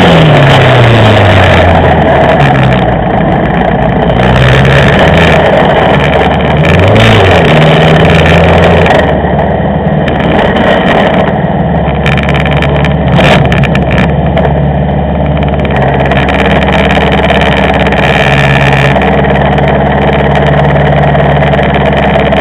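VW Polo 16V race car's engine heard from its onboard camera: the revs drop sharply as the car slows, then it runs at low revs and idles, with a short blip of the throttle about seven seconds in.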